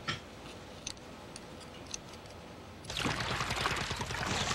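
A few faint light clicks, then about three seconds in, a steady sound of water pouring and splashing at the side of a small boat where a cage of mussels is being handled.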